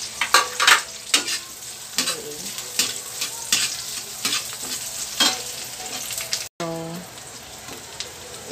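Onions and garlic sizzling in hot oil in a wok, with a long metal ladle scraping and clinking against the pan again and again as they are stirred.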